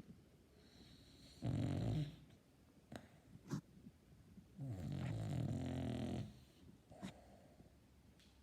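Dog snoring: two pitched snores, the second one longer, with a few short breath sounds between them.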